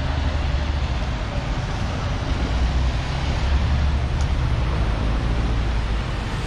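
Steady road traffic: a continuous low rumble and hiss of passing cars.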